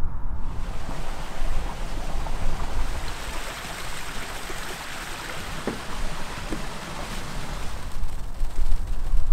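Wind blowing outdoors: a broad rushing hiss that swells up about half a second in and eases off near the end, over a low rumble of wind buffeting the microphone.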